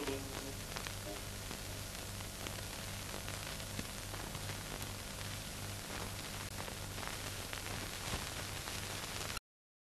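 Steady hiss and crackle with a low hum that throbs on and off in an even rhythm: the background noise of an old film soundtrack after the music has ended. It cuts off suddenly near the end.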